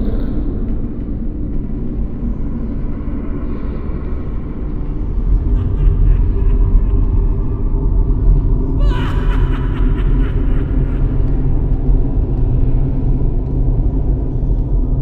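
Deep, steady rumbling drone of dark horror ambience. About nine seconds in, a sudden sharp sound cuts in and quickly drops in pitch, leaving a held tone for a couple of seconds.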